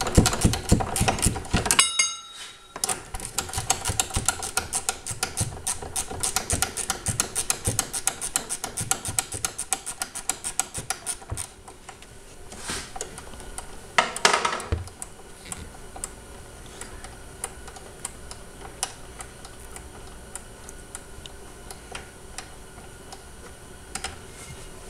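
Hand ratchet clicking rapidly as the 13 mm jackshaft retainer bolt is backed out, with a short break about two seconds in. After about eleven seconds the clicking stops, leaving a few scattered clicks and knocks.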